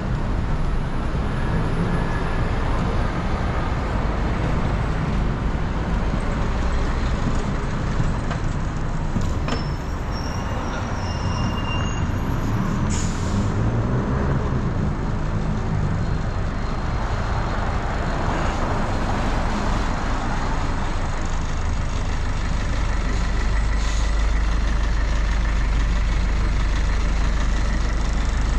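City street traffic: steady road noise from passing vehicles, with a double-decker bus's engine rumbling close by and growing louder over the last several seconds.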